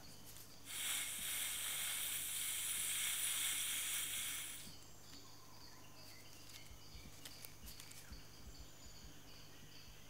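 A chameleon hissing in a threat display: a breathy hiss of about four seconds that starts about a second in and fades out. It is followed by faint, evenly repeated insect chirps.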